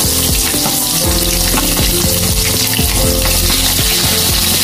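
Pieces of boiled chicharon bulaklak (pork mesentery) deep-frying in a wok of hot oil: a steady, dense sizzle, with now and then the click of a metal spatula turning the pieces.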